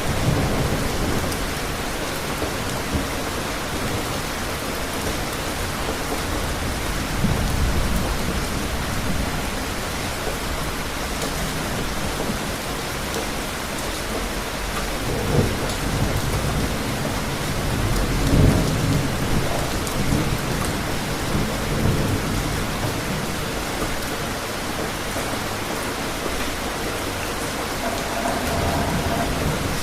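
Steady heavy rain hissing, with low rumbles of thunder swelling up a few times, the strongest about two-thirds of the way through.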